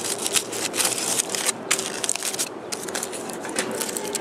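Aluminium foil wrapper crinkling and crackling as it is pulled open by hand, in irregular bursts of sharp crackles.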